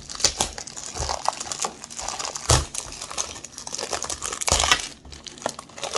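Plastic film being torn and crinkled off a perfume box: a continuous crackle with sharper rips and crumples, loudest about two and a half and four and a half seconds in.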